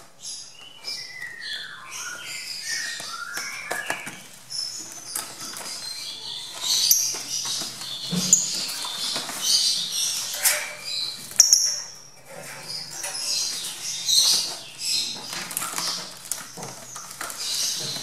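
Young lovebirds chirping shrilly and flapping in a small wire cage, with rustling and rattling as the cage is handled.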